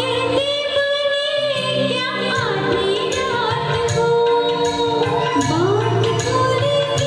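Two women singing a melodic song in turn through stage microphones, over amplified backing music with a steady beat; the second voice takes over in the last couple of seconds.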